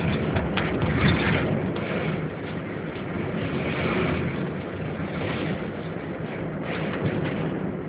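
Car driving, heard from inside: a steady low rumble of road and engine noise, swelling slightly about four seconds in.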